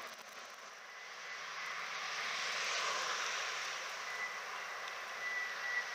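Boeing 747-400's four jet engines heard from the ground as the airliner climbs out after takeoff: a steady rushing jet noise that grows louder over the first three seconds and then holds.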